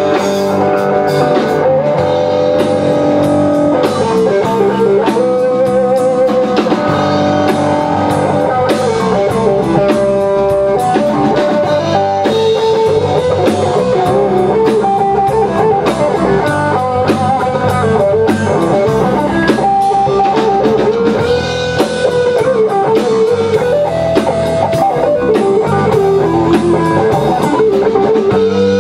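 A live rock band playing an instrumental break: an electric lead guitar line with bent, wavering notes over rhythm electric guitar and a Tama drum kit.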